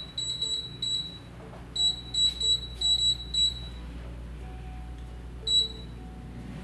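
Air fryer's control panel beeping as its buttons are pressed to start a cook: short high beeps, a quick run in the first second, about five more between two and three and a half seconds in, and a single last beep about five and a half seconds in.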